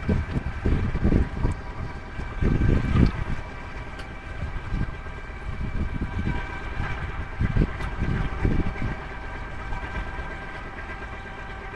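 Wind buffeting the microphone in irregular low gusts, strongest in the first few seconds, over a steady whine of several high, level tones from the sailboat's electric drive motor running under way.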